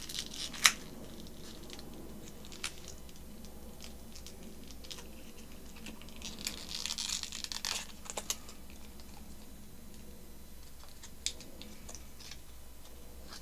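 Close handling of small doll accessories and their thin plastic wrapping: scattered light clicks and ticks, the sharpest about a second in, with a brief rustle and crinkle of plastic about seven seconds in.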